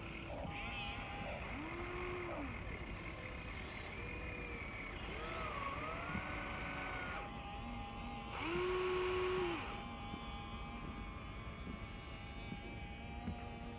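Huina 1593 RC excavator's small electric motors whining as the boom, arm and bucket move and the cab swings. Each whine rises in pitch, holds, then falls as a motor starts and stops, several times over; the loudest comes about nine seconds in.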